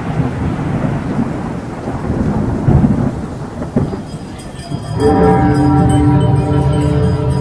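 A thunderstorm sound effect, rumbling thunder with a rain-like hiss, played over loudspeakers and slowly fading. About five seconds in, music with steady held tones starts.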